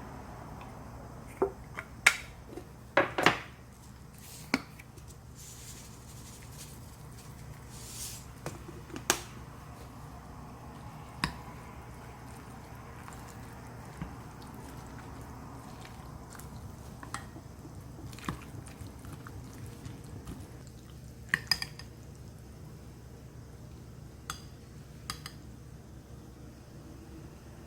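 Dishes and utensils being handled: scattered clinks and clacks, most of them in the first few seconds, over a steady low hum.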